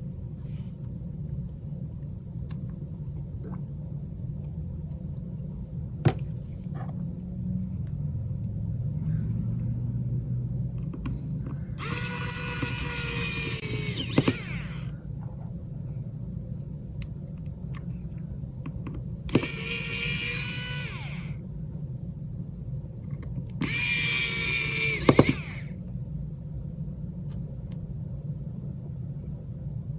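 A small power tool whining in three bursts of two to three seconds each, over a steady low hum, with a few sharp clicks between.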